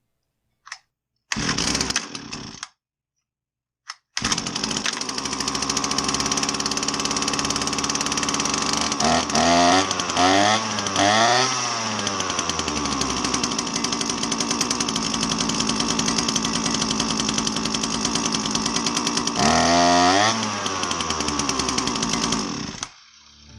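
Husqvarna 322R brush cutter's small two-stroke engine, freshly tuned up: it fires for about a second and dies, then starts about four seconds in and runs, revved up and down three times around the middle and once more near the end, then cuts off.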